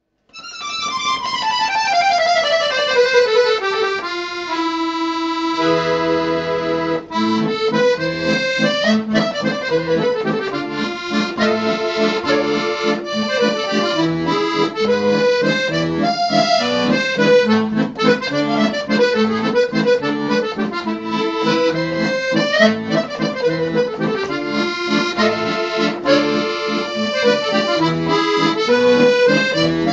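Accordion music. It opens with a run of notes falling in pitch, then low accompaniment notes come in at about five seconds under the melody.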